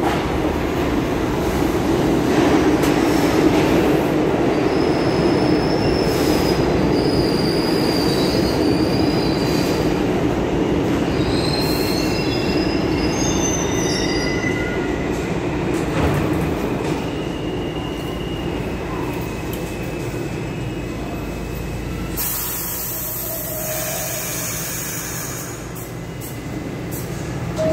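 R68 subway train pulling into an underground station and stopping: a loud rumble of wheels on rail, with high wheel and brake squeals as it slows. Once it has stopped, a long hiss sounds near the end.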